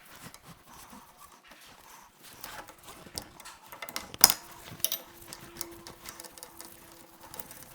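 Socket ratchet clicking in short runs, with light metal tool clinks, as the transmission oil drain bolt is loosened. One sharp metallic clink about four seconds in.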